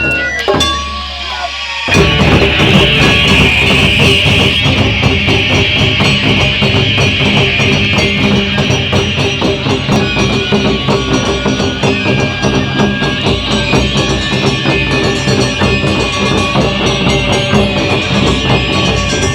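Live Japanese festival drum music: an ensemble of taiko drums and hand percussion beating a dense, driving rhythm that comes in at full strength about two seconds in, after a brief lull.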